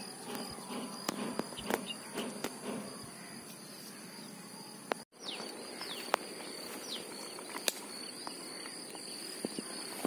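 Outdoor waterside ambience: insects keep up a steady high-pitched drone, with a few short falling bird chirps and scattered small clicks. The sound cuts out for an instant about halfway.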